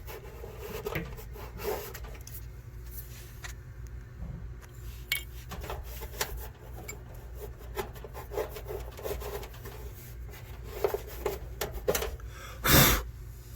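Hands handling small parts and rubbing them against metal and plastic while fitting a replacement thermal fuse into a gas dryer, with scattered small clicks and scrapes. One louder, brief scrape comes near the end.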